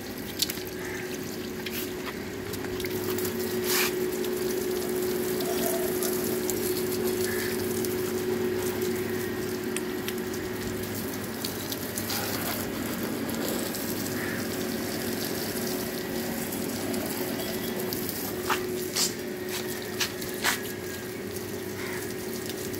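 Water from a garden hose, its end pinched by a thumb into a fan spray, hissing and splashing onto a motorcycle and the wet concrete around it. A steady low hum runs underneath, and a few sharp knocks come about four seconds in and again near the end.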